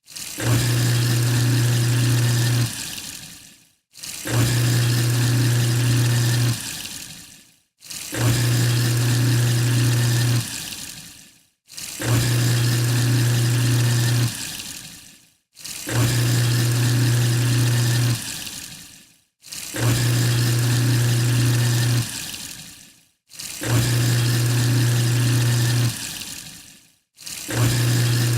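Sink garbage disposal running with water: a steady motor hum over rushing, churning noise for about two and a half seconds, then the hum cuts off and the noise fades away. The same on-and-off cycle repeats about every four seconds.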